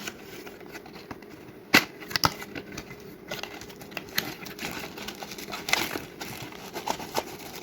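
Product packaging being opened and handled: scattered sharp clicks and light rustling, with the loudest clicks about two seconds in.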